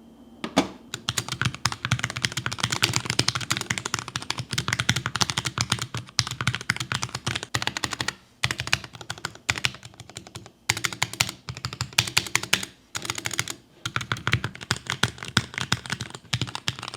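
Fast typing on a Keychron K6 mechanical keyboard: a dense run of key clacks, broken by short pauses a few times. The keyboard has new keycaps and its O-rings removed.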